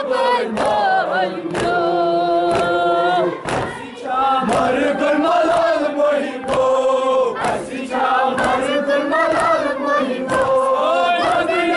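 Crowd of men chanting a Kashmiri noha, a Shia lament, in unison, with sharp slaps of hands striking chests (matam) about once a second.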